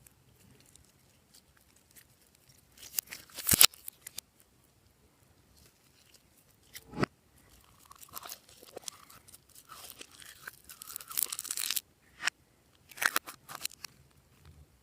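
Glossy slime being squeezed and pulled by hand, giving bursts of sticky crackling and popping with quiet pauses between, the longest burst near the end.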